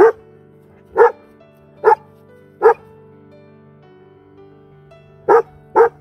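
A goldendoodle barking six single barks: four in a row a little under a second apart, then a pause and two quick ones near the end, over steady background music.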